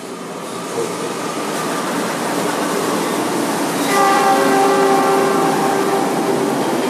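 A train passing, its rumble building over the first few seconds. About four seconds in, its horn sounds, a steady chord of several tones held for a couple of seconds.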